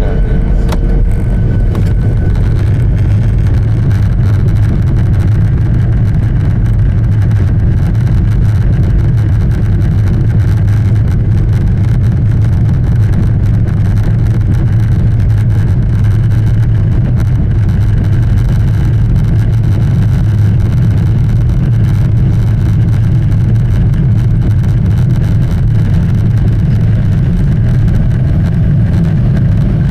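Jet airliner engines and airflow heard from inside the passenger cabin: a loud, steady low rumble with an even hiss above it.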